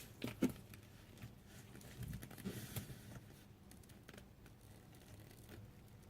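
A tegu lizard moving about, its claws scratching and rustling on its bedding in short bursts: the loudest about half a second in, another cluster around two to three seconds in, then only faint scattered ticks.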